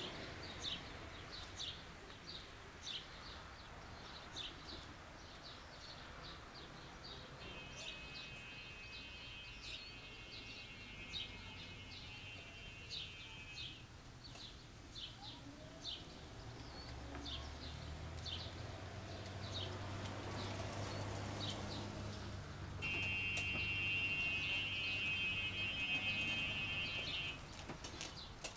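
Birds chirping repeatedly throughout, while a Club Car 48-volt electric stretch golf cart drives up, its low motor hum and tyre noise growing from about the middle and loudest near the end. A steady high-pitched buzzing tone is heard twice, for several seconds each time, once in the middle and again near the end.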